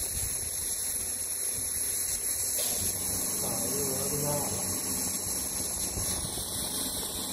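Steady electrical hum and high hiss from a running laser marking machine. Faint voices are heard about three to four seconds in.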